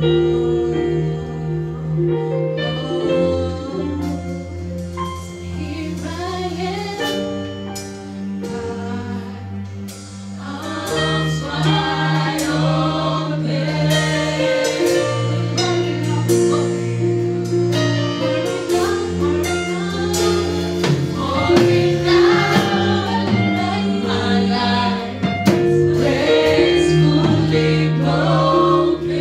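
Gospel choir singing a slow worship song live, a female lead voice in front of the choir, over sustained instrumental chords. The music dips about ten seconds in, then grows louder.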